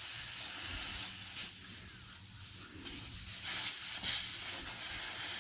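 Air hissing steadily out of a motorcycle front tire through its valve stem as the tire is deflated. The hiss eases for a moment about halfway through, then comes back stronger.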